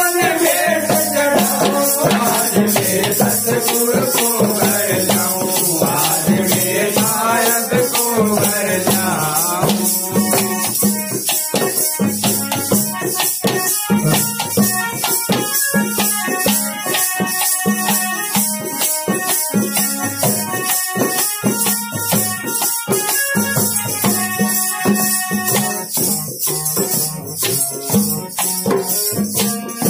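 Devotional bhajan music: a man's singing voice for about the first ten seconds, then an instrumental stretch of steady held melody notes. Plastic hand rattles are shaken in a steady beat throughout.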